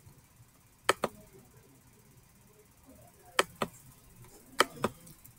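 Three pairs of sharp clicks, each pair a quick press and release, as a computer is operated by hand to leave the slideshow.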